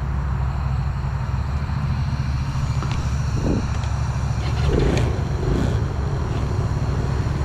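A motor vehicle running steadily: a constant low engine drone with a rushing noise over it.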